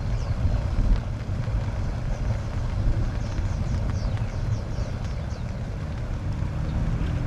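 Wind rumbling on the microphone outdoors by the water, with a run of faint, high, falling chirps about three to five seconds in.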